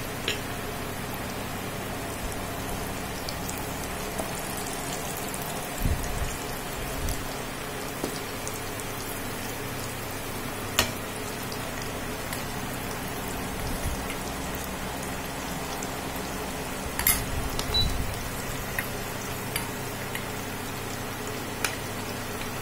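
Battered teasel gourd slices deep-frying in hot oil: a steady sizzle, with a few knocks and clicks from metal utensils against the pan.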